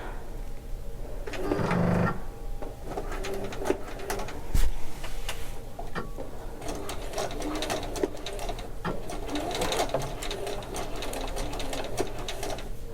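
Electric sewing machine stitching a seam, its needle clicking in quick, uneven runs. There is one louder knock about four and a half seconds in.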